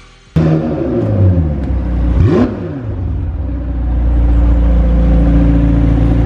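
McLaren 720S twin-turbo V8 exhaust: the engine comes down from a rev, is blipped once, sharply up and back down, about two seconds in, then settles to a steady idle.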